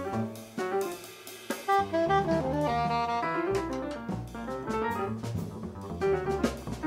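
Live free-jazz quartet improvising: soprano saxophone playing runs of short notes, with a longer held note near the middle, over piano, plucked double bass and a drum kit with frequent cymbal and drum strokes.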